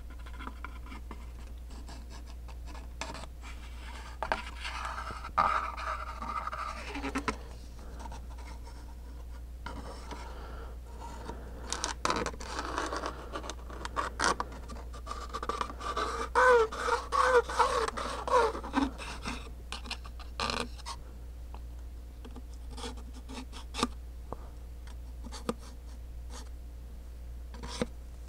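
A small plywood box is handled while glue is squeezed from a plastic bottle along its seams: light scratching, rubbing and small taps. A run of short squeaks comes in the middle, over a steady low hum.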